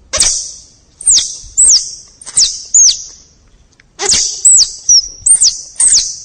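Squirrel calling: a series of about ten sharp, very high-pitched chirps, each sliding down in pitch, in two quick runs with a short pause between them.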